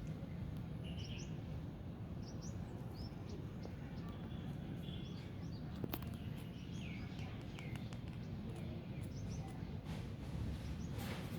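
Small birds chirping with many short, quick calls over a steady low background noise, with one sharp click about six seconds in.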